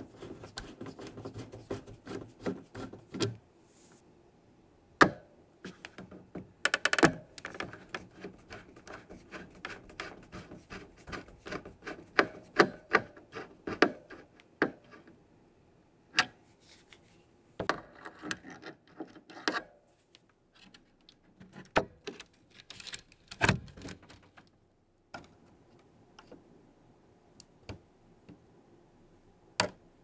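Screwdriver bit turning small screws out of a mechanical keyboard's metal plate and circuit board: irregular sharp metal clicks and scrapes, with short runs of rapid ticking and quiet gaps between them.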